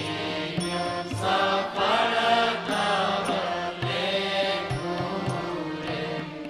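Devotional bhajan music playing between sung lines: a wavering melody over a low steady drone, with low drum beats and sharp metallic strikes every second or so.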